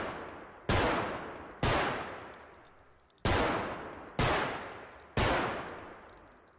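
M1911 .45 pistol fired five times, single shots about a second apart with a longer pause after the second, each shot echoing away before the next.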